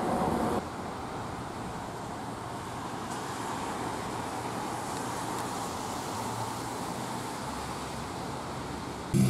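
Steady hum of distant road traffic, an even wash of outdoor noise with no distinct events. A louder sound breaks off about half a second in, and music starts at the very end.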